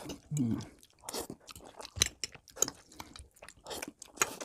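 Close-up eating sounds of two people slurping and chewing noodles: a string of short, irregular wet mouth clicks and smacks.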